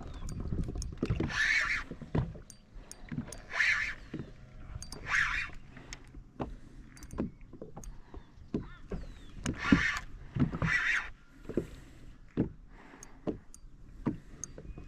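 Water splashing and sloshing around a small fishing boat in repeated bursts every second or two, with light clicks and knocks from gear and the hull.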